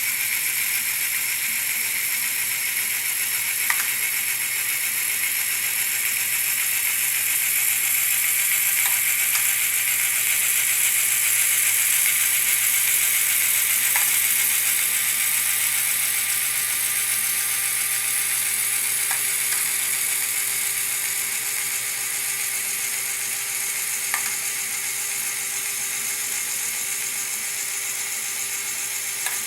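Motorized LEGO Technic mechanism running steadily: electric motor and plastic gear train whirring and rattling, with a single sharp click about every five seconds.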